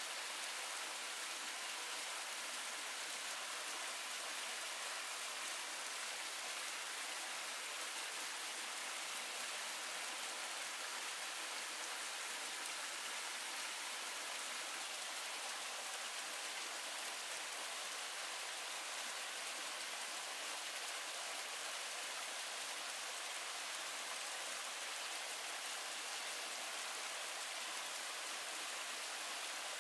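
Rain falling together with a small stream running over rocks: a steady, even hiss of water with no separate drops or knocks standing out.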